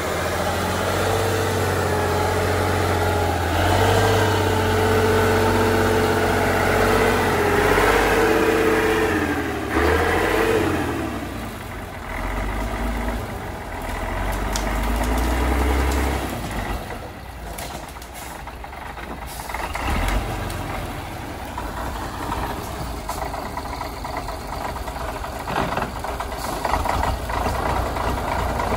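Praga V3S truck's air-cooled six-cylinder Tatra diesel pulling the loaded truck slowly along a rough forest track, its revs wavering and then falling and rising again. After about twenty seconds it settles to a lower, steady running, with a few clunks near the end.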